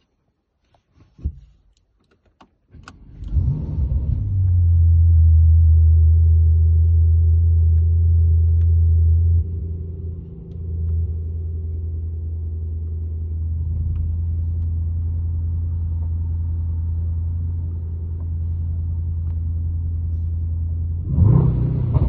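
Brabus GT63 Rocket 900's twin-turbo V8 heard from inside the cabin. A few clicks come first, then the engine starts about three seconds in and runs at a loud fast idle. It settles to a lower, steady idle around ten seconds in and is revved once briefly near the end.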